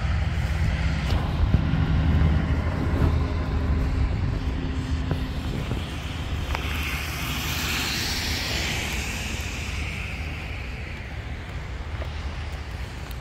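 Wind rumbling on the microphone over road traffic, with a car's tyres hissing on the wet road as it passes, loudest about eight seconds in.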